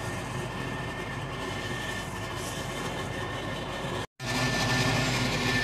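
A forge fire running steadily with a low hum, heating a steel axe head for hardening. The sound cuts out briefly about four seconds in, then comes back a little louder.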